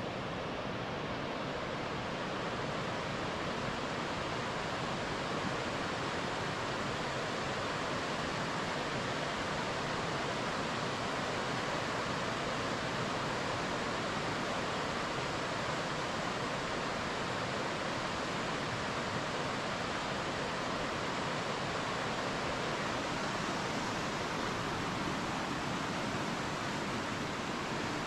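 Waterfall water rushing in a steady, unbroken stream of noise that holds the same level throughout.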